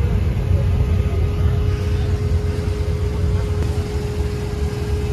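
An engine running steadily: a constant low rumble with a steady hum over it.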